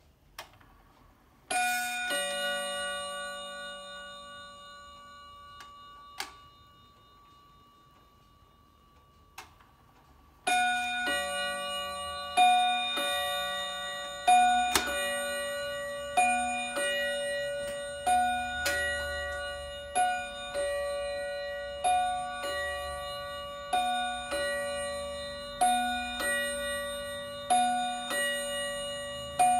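Citizen quartz regulator wall clock's bim-bam chime. It sounds one bim-bam about a second and a half in, which rings and fades over several seconds. From about ten seconds in it strikes twelve o'clock, one two-note bim-bam roughly every two seconds, eleven of them here.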